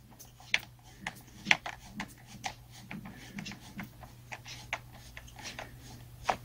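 Small clicks, ticks and light scrapes as a bolt is unscrewed by hand from a chainsaw's plastic recoil starter cover and the cover is handled, the sharpest clicks about half a second and a second and a half in.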